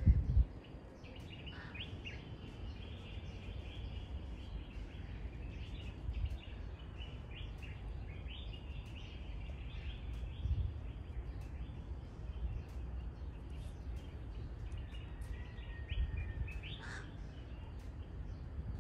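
Several wild birds chirping and calling in a morning chorus: many short chirps, with one brief whistled note near the end, over a steady low rumble.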